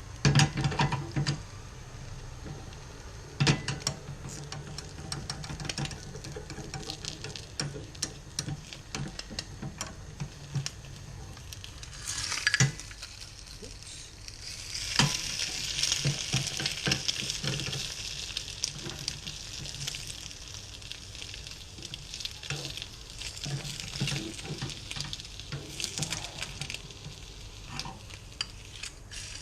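Eggs frying in a small single-egg pan: a steady sizzle with repeated clicks and scrapes of a spatula against the pan, and a few sharp knocks in the first few seconds. About halfway through, the sizzle grows louder.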